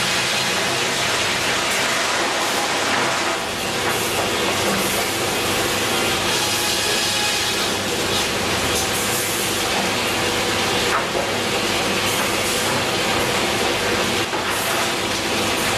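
Grey Series 2000 reversing belt sawbench running and sawing timber: a steady, loud mix of saw and machinery noise.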